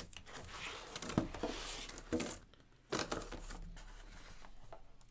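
Cardboard packaging rustling and scraping as a large photo print is slid out of its box, a series of rustles with a few sharper knocks.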